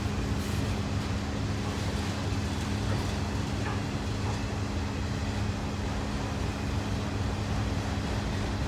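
A freight train of autorack cars rolling past on the rails: a steady, unbroken running noise with a low hum under it.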